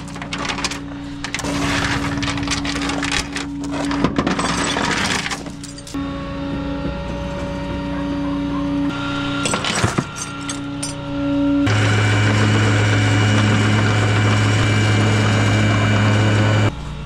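Steel tie-down chain clinking and rattling against a rollback tow truck's aluminium deck as it is unhooked, over a steady hum from the running truck. About two-thirds of the way in, the bed's hydraulics come on with a louder steady hum lasting about five seconds, then stop.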